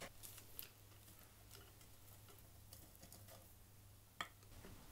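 Near silence: a low steady hum with a few faint ticks and clicks, one sharper click about four seconds in.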